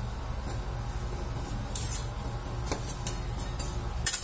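A metal spatula scraping frozen ice cream off a steel cold plate as it rolls the sheet up, in short scraping strokes that are loudest about two seconds in and again near the end, over a steady low hum.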